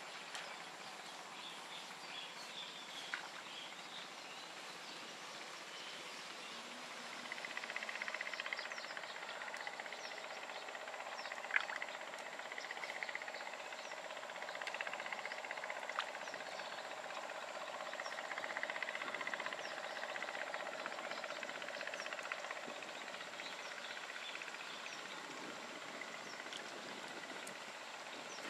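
Faint outdoor background: a steady mixed hum with a high thin tone running through it, growing a little louder about seven seconds in, with a few sharp ticks.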